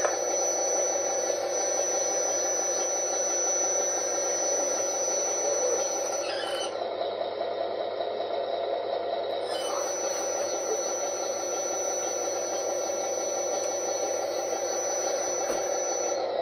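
RC dump truck's hydraulic tipper: a thin, high, steady whine as the bed lifts, a pause of about three seconds with the bed up, then the whine again as the bed comes down. Under it, the sound module's simulated truck diesel runs steadily through a small speaker.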